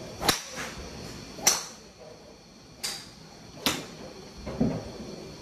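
Golf drivers striking balls off tees: four sharp cracks, the first about a third of a second in and the loudest about a second and a half in.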